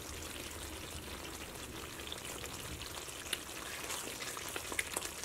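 Thick ginger curry simmering in a pan, with a faint steady bubbling hiss and scattered small pops.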